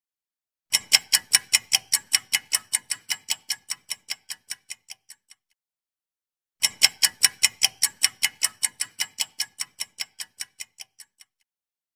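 Ticking-clock sound effect of a quiz countdown timer: fast, even ticks, about five a second, that fade away over about four and a half seconds. It plays twice, first just under a second in and again about halfway through, with silence between.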